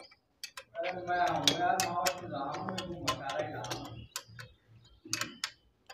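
Metal clicks and taps of a spanner working the nuts on a steel dish-antenna wall bracket as its bolts are tightened.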